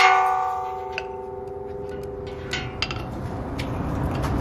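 A claw-hammer blow on a pin in an aluminium truss tube's base joint, the truss ringing on at several pitches like a bell and dying away over about two seconds. A few light metal clicks follow as the pin is handled.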